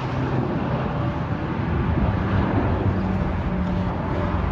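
Steady low engine rumble with a held humming tone.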